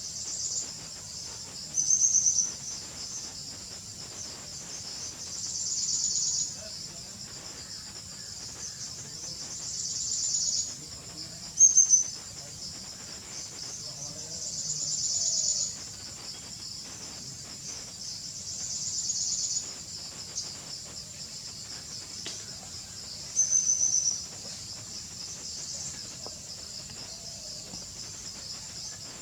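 A chorus of insects chirring steadily at a high pitch. Every four seconds or so a louder chorus swells for a second or two and then stops. Three short, louder high-pitched calls stand out, about two seconds in, around the middle, and about two-thirds of the way through.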